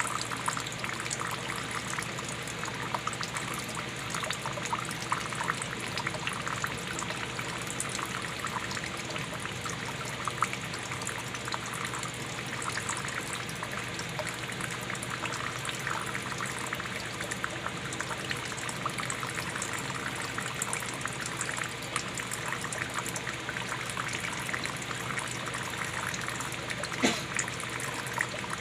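Water pouring in a steady, unbroken stream. Near the end there is a single sharp knock.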